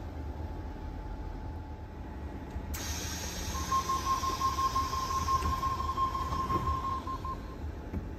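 Sydney Trains double-deck electric train at a platform: a sudden hiss of air about three seconds in, then a steady single-pitched door-closing warning tone for about four seconds as the doors shut, over the low hum of the standing train.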